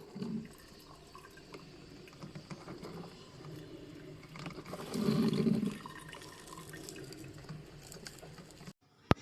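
Drip coffee maker heating water and pushing it through, gurgling and dripping, on a first run with plain water to flush the machine, with a louder gurgle about five seconds in. A single sharp click near the end.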